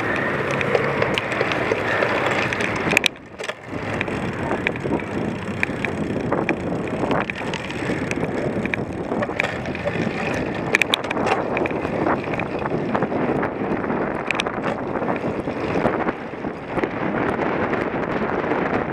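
Cyclocross bike being ridden hard over rough ground, with wind buffeting the microphone: a dense, steady rush of noise scattered with sharp rattling clicks from the bike. The noise drops briefly about three seconds in.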